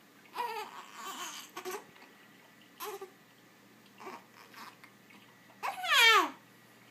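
A baby with hiccups making short high-pitched vocal sounds and whimpers, and one louder cry about six seconds in that falls in pitch.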